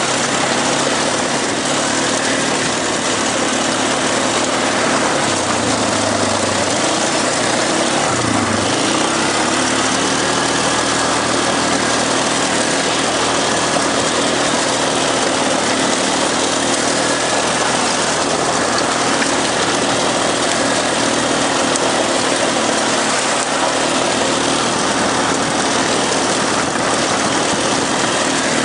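ATV engine running as the quad rides a rough coastal track, with a steady rushing noise over it. The engine note dips briefly twice, about six and eight seconds in, as the throttle eases.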